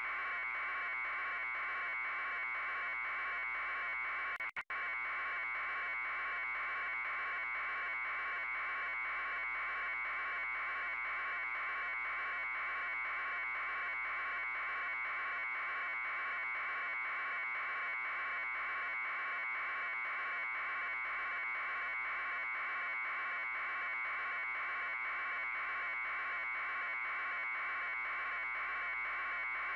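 A steady buzz with a fast, even pulsing texture, cutting out for a split second about four and a half seconds in.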